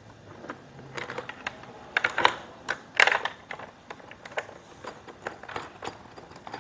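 Irregular clicks and taps of small metal parts as ring terminals are fitted and screwed by hand onto battery terminals and a shunt, the loudest clicks about two and three seconds in.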